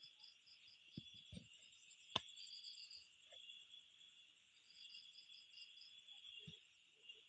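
Faint night insects, crickets, trilling steadily with runs of quick pulsed chirps that start and stop. A sharp click about two seconds in and a few soft bumps.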